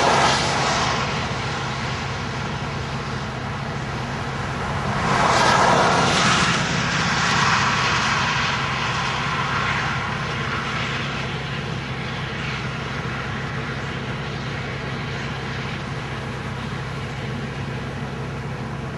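Wind rushing over the microphone, with a steady low hum underneath. The rush swells loudest at the very start and again about five to seven seconds in.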